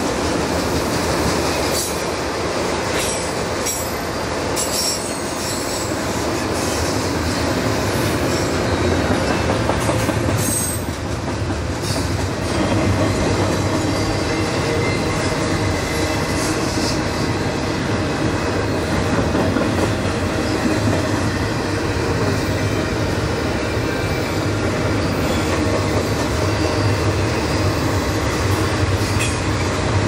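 Freight train of double-stacked container well cars rolling past: a steady rumble of steel wheels on rail, with scattered clicks and knocks from the wheels and couplings.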